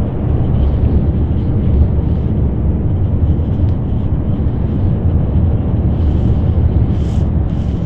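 Steady low rumble of a city bus's engine and tyre noise, heard from inside the cabin while it drives along at speed. A few short hisses come near the end.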